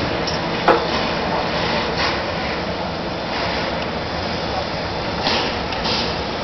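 Steady rushing outdoor background noise, with a single sharp click a little under a second in.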